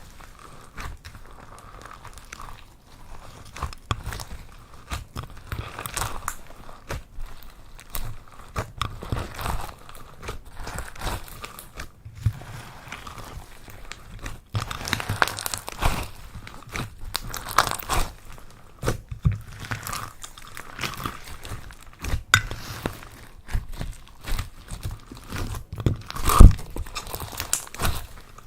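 Purple slime being squished and worked by hand, giving an irregular run of small crackles and pops. The loudest pop comes near the end.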